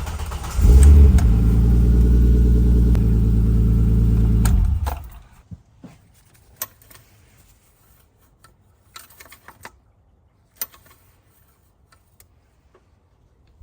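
BMW E30's turbocharged M20 2.5-litre straight-six engine catches on the starter with a brief flare of revs, then idles steadily for about four seconds and is switched off. Faint clicks and taps follow.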